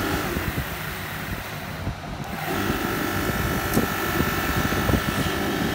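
Electric monoblock water pump motor running, a steady mechanical hum with a higher whine that fades briefly about two seconds in and then comes back steady.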